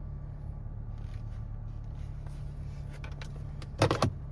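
Nissan MR20DD 2.0-litre four-cylinder engine idling steadily, running again now that the faulty VIN J relay connection behind its crank-no-start fault has been restored. A brief loud noise sounds near the end.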